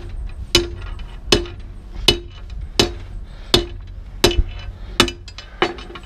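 Short-handled sledgehammer striking a steel rebar laid across an excavator's steel track to straighten it. About eight evenly spaced metal clanks, roughly one every three-quarters of a second, each with a brief ring.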